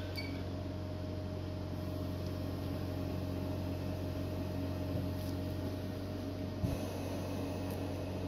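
Steady machine hum with a faint steady tone above it, and one soft knock about two-thirds of the way through.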